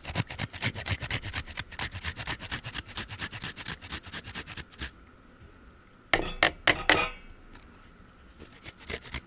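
Food being rubbed down a handheld metal grater, making quick rasping scrapes several times a second for about five seconds. After a short pause come a few louder strokes, then faint scraping near the end.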